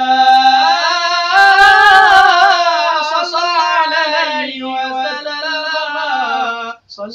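An unaccompanied male voice sings a long, ornamented line of Islamic devotional chant, bending between held notes. It breaks off briefly just before the end and then picks up again.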